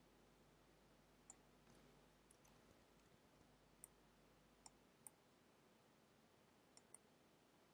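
Near silence broken by about six faint, irregular computer mouse clicks, the clicks of short brush strokes being made one after another.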